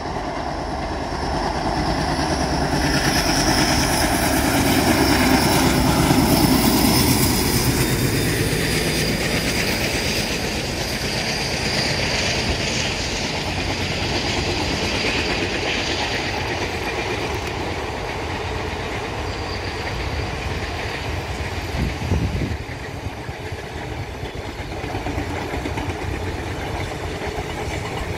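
Indian Railways express passenger train running past at speed: a continuous rumble and clatter of coaches and wheels on the rails, loudest about six seconds in as the train comes closest, with one short louder knock later on.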